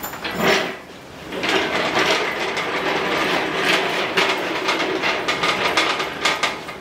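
Steel engine crane rolled on its casters across a concrete floor, rattling and clattering, with heavy steel parts knocking and scraping as they are moved.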